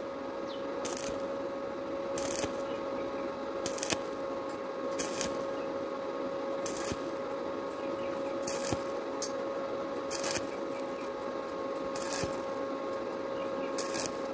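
Stick (arc) welding on 0.7 mm thin steel square tube with a 2.0 mm rod at about 30 A. The arc crackles in short bursts about every one to two seconds over a steady hum, as it is struck and broken again in a stitching pattern to avoid burning through the thin wall.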